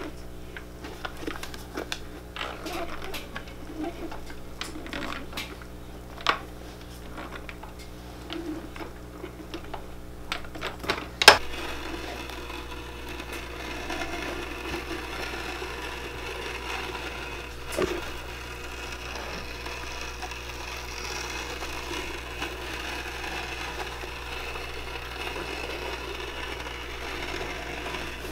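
Scattered clicks and metal clanks from a hand-lever cobbler's bench press being worked on a boot's sole edge, with a sharp knock about eleven seconds in. After that comes a steady hum of shop background noise, with a single knock a few seconds later.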